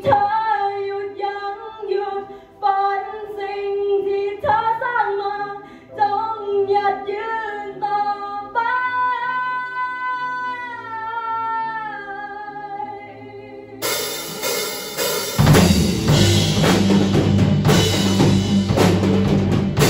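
Live rock band: a young woman sings a slow pop melody over soft keyboard accompaniment, then about fourteen seconds in the drum kit with cymbals, electric guitars and bass guitar come in and the full band plays loud.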